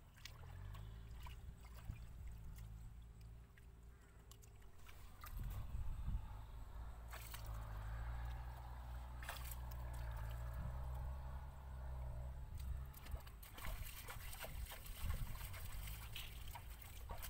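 Shallow muddy water sloshing and trickling as someone wades through it and works her hands in the mud, with scattered small splashes, over a steady low rumble.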